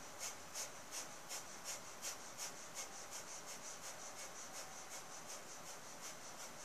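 Breath of fire yogic breathing: rapid, forceful puffs of breath in and out of the nose only, driven by pumping the navel, in an even rhythm of about three puffs a second.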